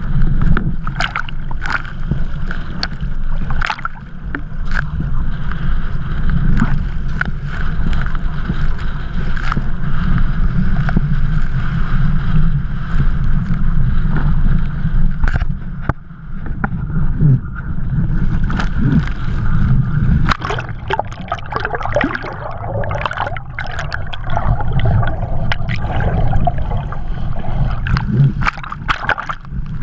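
Strong wind rumbling on an action camera's microphone, with choppy water splashing and sloshing against the camera, heavier and more broken in the second half.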